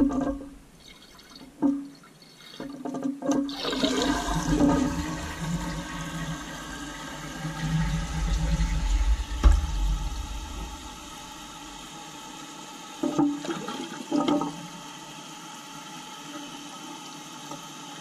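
A tank toilet flushing about three and a half seconds in, after a few light knocks: water rushes out of the tank past the flapper for several seconds, then settles into the steady hiss of the new FluidMaster 400CR fill valve refilling the tank.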